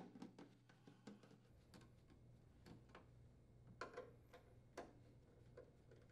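Near silence with faint, irregular clicks of a nut driver working screws out of a freezer's fiberboard rear access panel, over a low steady hum.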